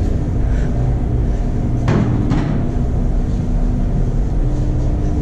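A steady low hum and rumble, with one sharp knock about two seconds in.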